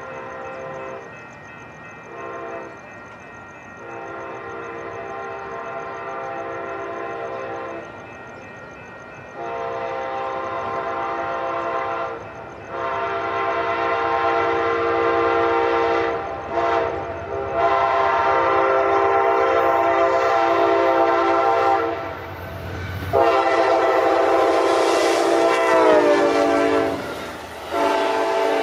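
Amtrak GE P42DC diesel locomotive's Nathan K5LA five-chime air horn sounding a series of blasts, several of them long, as the train approaches a grade crossing. Near the end the chord drops in pitch as the locomotive passes.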